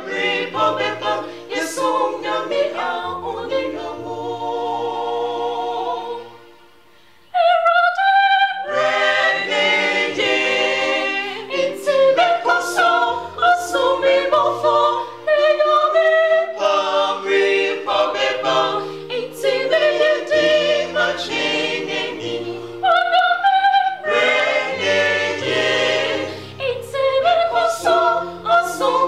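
Mixed vocal quartet of two men and two women singing in close harmony. About six seconds in, the sound fades away, and a little over seven seconds in the full group comes back in sharply.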